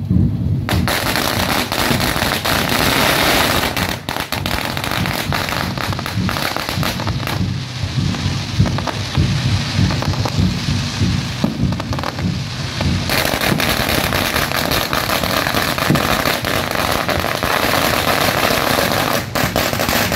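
Fireworks going off in a dense, continuous crackle of many rapid pops, with aerial shells bursting overhead. The crackling starts about a second in and keeps going with only brief dips.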